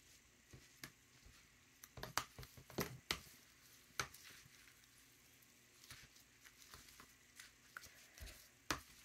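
Faint, scattered clicks and taps of a metal spoon against a plastic tray, with soft wet squishing as fabric is pressed down into a bath of dye solution.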